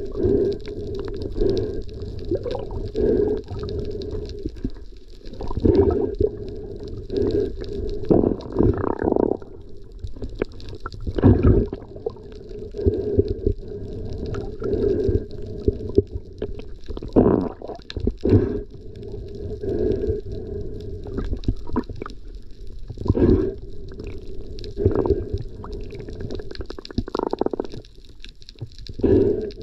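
Muffled underwater rumbling and gurgling of water moving around a submerged camera housing, rising and falling in uneven surges about once a second, with a few sharper knocks.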